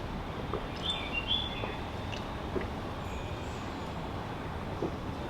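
Steady background noise with two or three brief high chirps about a second in and a few faint clicks.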